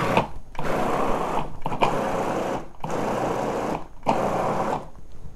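Food processor pulsed about four times, each burst of the motor lasting about a second with short breaks between, chopping and mixing a plant-based burger mixture of mushrooms, walnuts and brown rice.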